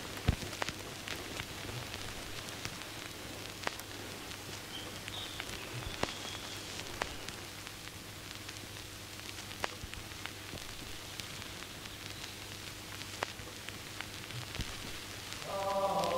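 Steady soft hiss of wet forest ambience with irregular sharp ticks of water drops falling, about one every second or two, over a faint low hum. Music fades in near the end.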